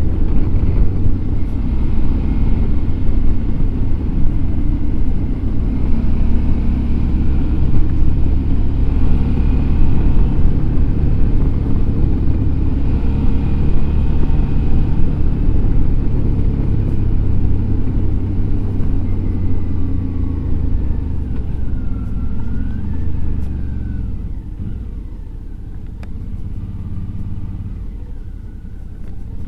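Suzuki V-Strom DL650 XT's V-twin engine running under way, its note stepping up and down. It gets quieter over the last six seconds or so.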